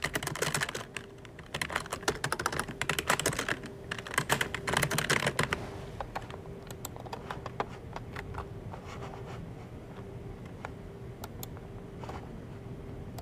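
Typing on a computer keyboard: a fast, dense run of keystrokes for about the first six seconds, then slower, scattered key presses.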